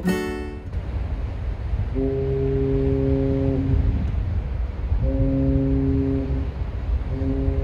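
Ferry's horn sounding three times, each a steady low blast about a second and a half long, over a constant low rumble.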